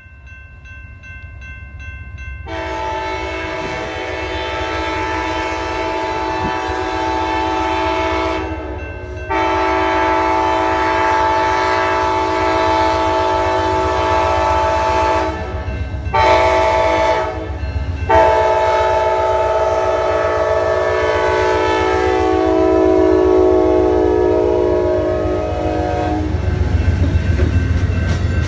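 Amtrak Carolinian passenger train arriving. A bell rings briefly, then the locomotive's multi-chime air horn sounds the grade-crossing pattern of long, long, short, long, its pitch dropping slightly on the last long blast. Beneath the horn the train rumbles, and near the end the passenger cars clatter over the rail joints as they pass.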